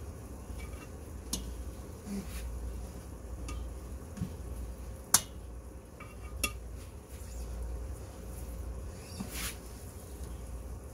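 Metal tongs clinking against stainless steel skillets as pieces of cooked steak are lifted out and set into another pan: a few sharp separate clinks, the loudest about five seconds in, over a low steady hum.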